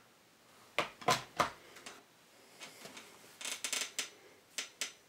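Sharp clicks and knocks of a mains plug and leads being handled and plugged in to power the floodlight: three knocks about a second in, a quick run of clicks around three and a half seconds in, and two more near the end.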